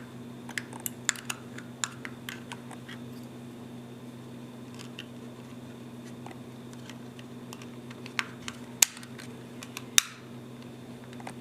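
Small plastic clicks and taps from handling a Genie GITR-3 garage door remote while its battery is seated and the case is closed, with a few sharper clicks near the end. A steady low hum runs underneath.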